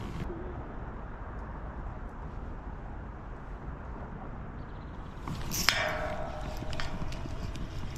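A fishing rod cast with a quick swish about five and a half seconds in, then a Shimano Vanford spinning reel being cranked, whirring with a fine, steady ticking. A low background rumble runs throughout.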